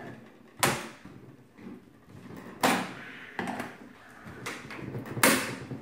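Large flat-blade screwdriver prying apart the crimped sheet-metal seam of a steel partition panel: three sharp metallic snaps, roughly two seconds apart, with a few fainter knocks and scrapes between them.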